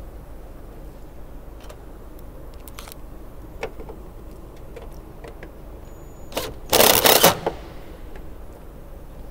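Power driver running a hex-head screw through wire mesh into sheet metal: a short blip, then a loud run of under a second about two-thirds of the way in. Light clicks and rattles of the wire mesh being handled come before it.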